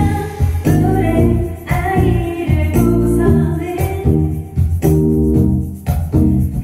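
Live band performance: a woman singing into a microphone over electric bass and percussion.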